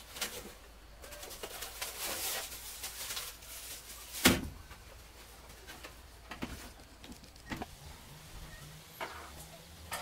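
Handling noise on a wooden porch: a woven basket rustling as it is lifted off the wall and shouldered, with one sharp knock about four seconds in. Scattered light taps of footsteps on the wooden boards follow.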